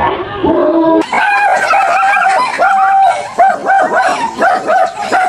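A dog yipping and whimpering in quick, repeated high-pitched yelps, starting abruptly about a second in.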